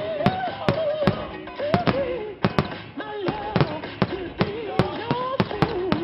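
Fireworks display: aerial shells bursting in a rapid string of sharp bangs and cracks, about three a second, with music underneath.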